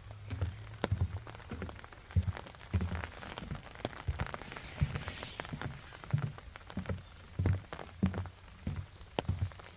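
Footsteps at a steady walking pace, a low thud about every two-thirds of a second, with rain dripping and pattering around them in many small sharp ticks.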